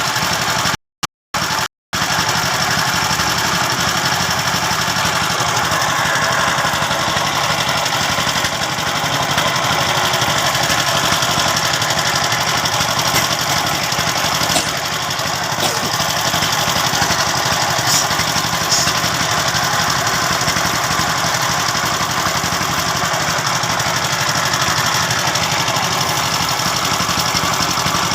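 An engine running steadily, with the sound cutting out completely three times in quick succession about a second in.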